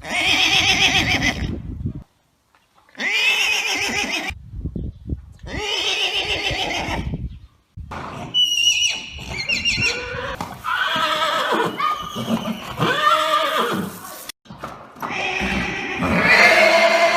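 A series of horse neighs and whinnies, one after another, some shrill and wavering, broken by a few abrupt cuts to silence between calls.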